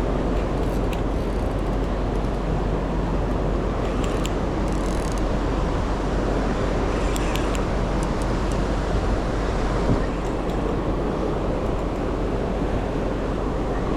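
Steady rushing outdoor noise by a big river, a continuous roar of moving water and city background with no speech, and a few faint high ticks about one, four and seven seconds in.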